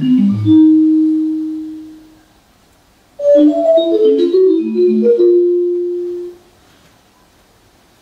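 Electronic keyboard played live in two short runs of quick notes, each ending on a long held note that fades away, with a pause of about a second after each phrase.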